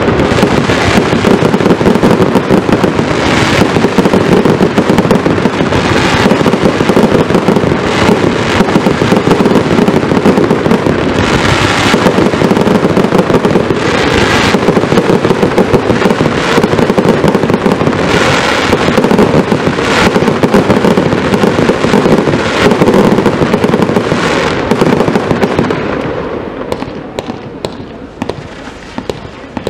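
A barrage of ground-fired fireworks: a dense, continuous stream of rapid bangs with louder bursts every couple of seconds. It thins out to scattered pops over the last few seconds.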